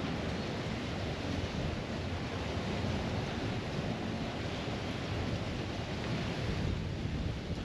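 Wind buffeting the microphone: a steady rushing noise with a rough low rumble and no distinct mechanical tones.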